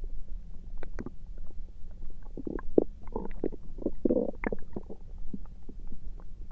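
Human stomach and intestines gurgling: a string of small pops and bubbly gurgles, busiest in the middle, over a steady low hum.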